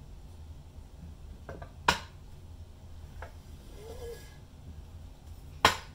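Parts of a microscope stand knocking and clicking as they are handled on a table: two sharp knocks about four seconds apart, with a few lighter clicks between them.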